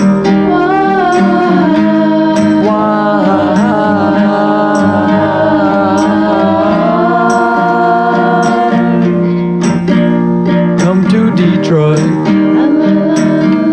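Pop song with guitar and a steady drum beat under a gliding melody line, the word "Detroit" sung near the end.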